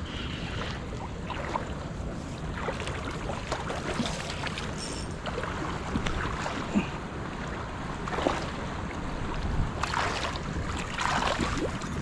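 River water running and gurgling, with wind buffeting the microphone as a steady low rumble.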